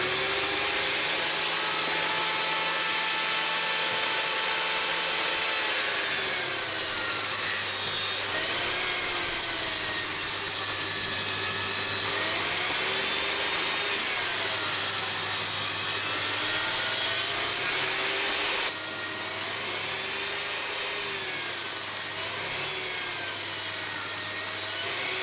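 Power saw cutting wooden boards: a steady whine over cutting noise, the motor's pitch dipping and recovering again and again as the blade takes each cut. It becomes a little quieter about three quarters of the way through.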